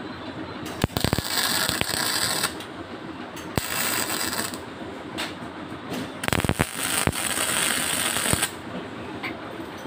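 Electric arc welding on stainless steel tubing: three short welds, each one to two seconds of steady high-pitched hiss and crackle that starts with a few sharp clicks as the arc strikes.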